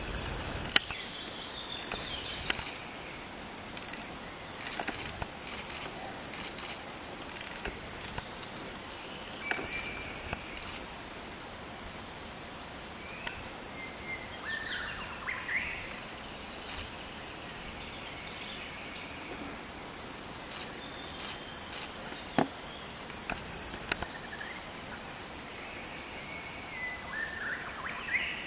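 Forest ambience: a steady, high-pitched insect drone, with scattered short bird calls and a couple of sharp clicks.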